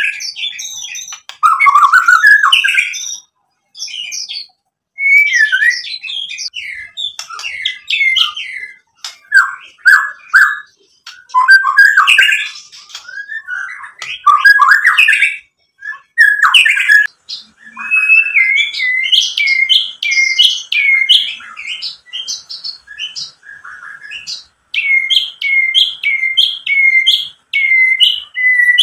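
White-rumped shama (murai batu) singing loudly: varied whistled and chattering phrases separated by short pauses. About two-thirds of the way through it changes to a run of repeated, down-slurred whistled notes, about two a second.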